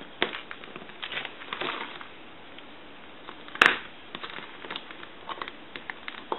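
Small clicks, taps and scrapes of wire leads and a soldering iron being handled on a workbench while a bridge rectifier is soldered together. There is one sharper click about three and a half seconds in.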